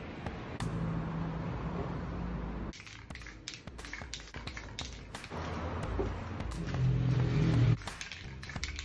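Paper handled against a poster board: rustling and sharp crackling clicks as sheets and crumpled magazine paper are pressed and moved over the painted surface. A low steady drone runs underneath, dropping out for a couple of seconds and stopping abruptly near the end.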